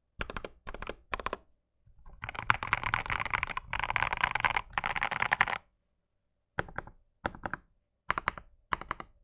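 Mechanical keyboard typing: lubed Gateron Oil King linear switches in a wooden 65% case with a polycarbonate plate. Short runs of keystrokes, a stretch of fast continuous typing from about two seconds in, a brief pause near the middle, then short runs of keystrokes again.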